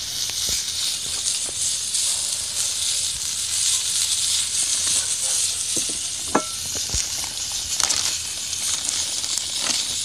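Hot dogs and kielbasa sizzling in a cast-iron skillet over a wood and paper fire: a steady hiss, with a few sharp crackles and pops from the fire.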